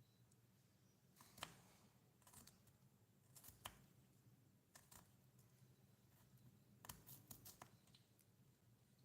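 Faint, scattered clicks and light taps of small kitchen utensils being handled in a miniature kitchen, with a cluster of quick clicks about seven seconds in, over a low steady hum.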